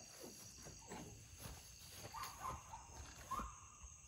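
Faint, steady chirping of evening insects, with scattered soft knocks and rustles from someone moving about and handling gear.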